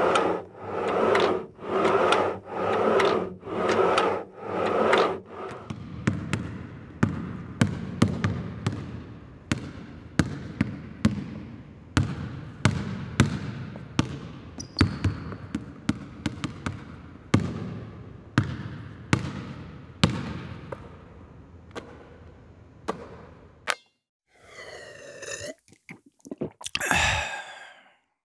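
Workout sounds: a rhythmic sound repeating about once a second, then a long run of sharp thuds, roughly one every half second to second. Near the end come a few short sounds that bend up and down in pitch.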